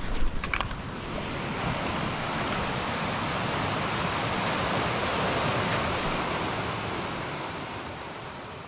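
Steady rush of flowing river water that swells and then fades out near the end, with a couple of brief knocks just after the start.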